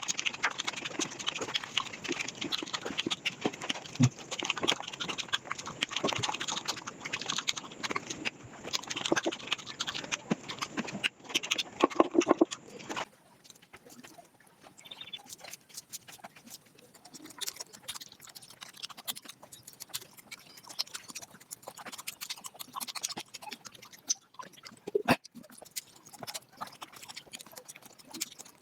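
Eating sounds sped up to several times normal speed: rapid chewing and wet mouth clicks running together into a fast clatter. About halfway through, the sound changes abruptly to a quieter, thinner stretch of the same kind of chewing.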